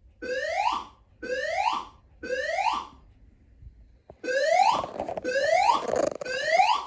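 Building fire alarm evacuation tone: a rising whoop, swept upward about once a second, sounding three times, pausing briefly, then three more.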